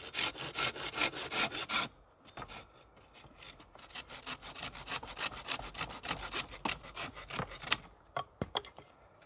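Hand saw cutting wood in quick back-and-forth strokes: a fast, loud run for about two seconds, a short pause, then a steadier run at about three to four strokes a second that thins out near the end.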